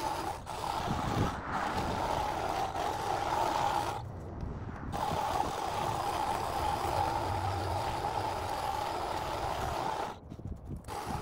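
Pole hedge trimmer running with a steady high whine as its blade cuts into shrub branches, stopping for about a second some four seconds in and again near the end.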